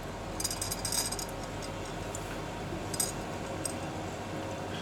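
Oxyhydrogen welding torch flame hissing steadily while it heats a copper joint. Brief high, metallic crackles come about half a second to a second in and again about three seconds in.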